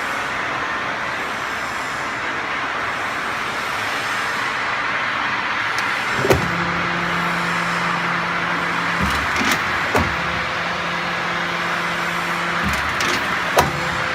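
QC11Y CNC hydraulic guillotine shear running: a steady noisy hiss, joined about halfway through by a click and a low steady hum that stops and restarts twice, with a few sharp clicks between.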